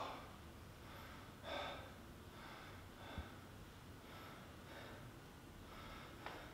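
A man breathing hard, faint, heavy breaths about once a second with the strongest about one and a half seconds in: catching his breath after a hard workout.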